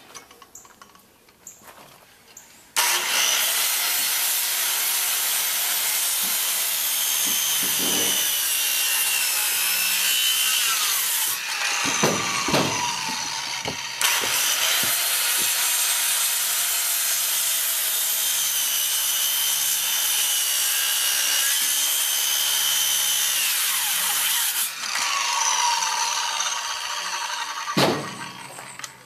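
Power saw cutting through wood, running in one long continuous cut with a few brief dips, its pitch shifting as the blade loads up.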